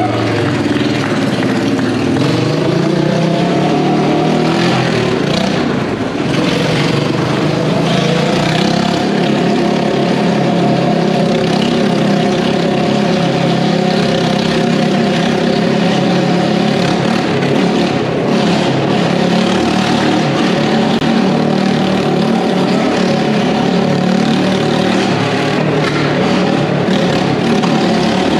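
Motorcycle engine running hard as the bike circles the vertical wooden wall of a Wall of Death drum. The engine note rises and falls in the first few seconds, then is held steady.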